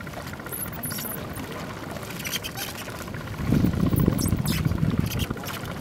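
Water lapping and splashing around a floating bamboo raft, with many small sharp clicks and squeaks. A louder low surge of water comes a little past halfway.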